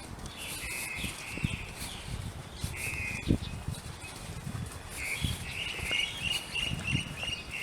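Birds calling: short buzzy calls, then a run of quick repeated chirps over the last couple of seconds. Scattered low thumps sound underneath.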